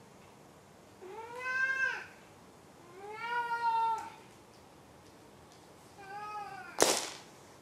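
Tabby-and-white domestic cat meowing three times, each call rising and then falling in pitch, the first two about a second long and the third shorter. Just after the third meow comes one sharp, loud click, the loudest sound here.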